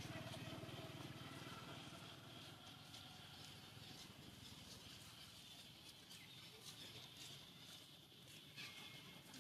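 Near silence: quiet outdoor ambience with a faint low hum that fades over the first few seconds, a few soft scattered clicks, and a brief faint chirp near the end.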